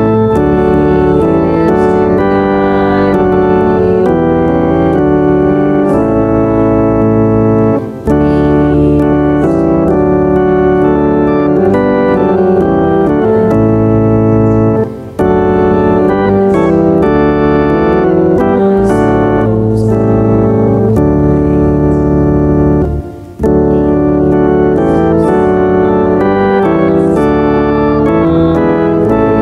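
Organ playing slow, sustained chords, with three short breaks between phrases.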